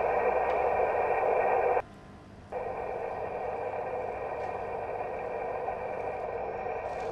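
Leak noise heard through the ground microphone of an acoustic water leak detector: a steady, narrow-band hiss. It cuts out about two seconds in, then returns at a lower level for the next measurement point.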